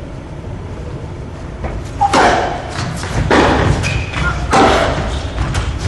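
Tennis rally on an indoor court: a ball being struck by rackets and bouncing, each hit a sharp pop that echoes in the large hall. The first two seconds are quieter, then come four or so hits about a second apart.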